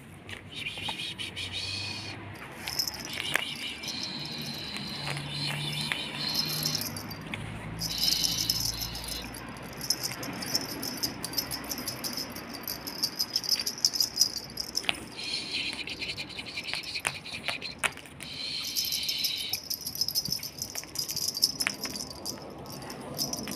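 Jingling and rattling, with blocks of high chiming tones that start and stop sharply and a few low notes underneath.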